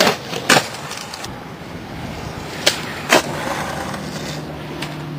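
Skateboard on concrete: two pairs of sharp clacks, one at the start and another nearly three seconds in, with the wheels rolling on the pavement in between.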